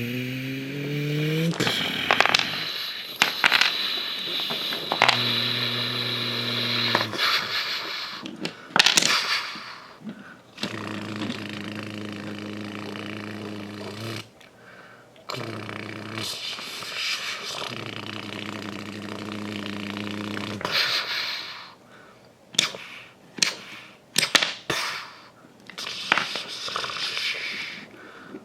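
Toy building blocks being knocked over and clattering down in repeated bursts of knocks and clicks. A low, steady, engine-like buzz is interleaved in several stretches of a few seconds.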